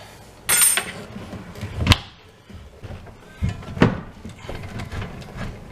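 Handling noises from an under-counter dishwasher being worked loose: a short metallic scrape-squeak about half a second in, then two sharp knocks, one near the middle and one later.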